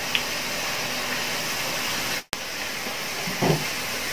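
Thin potato slices deep-frying in hot oil, a steady sizzling hiss as the chips crisp towards golden. The sound cuts out for an instant about two seconds in, and a brief louder sound comes near the end.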